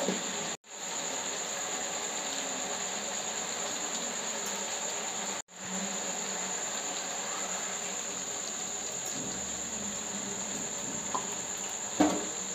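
Crickets trilling steadily at a high pitch. The sound cuts out briefly twice, and there is a short knock near the end.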